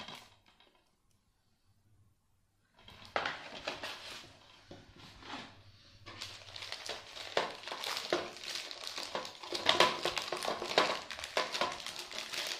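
Paper mailing envelope crinkling and rustling as it is handled, with irregular crackles, starting about three seconds in.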